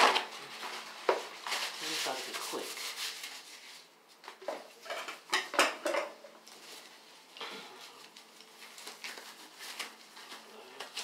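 Hair-dye kit packaging being crinkled and handled, then disposable gloves being pulled on: a run of sharp clicks, clatters and rustles, busiest in the first six seconds, with softer rustling after.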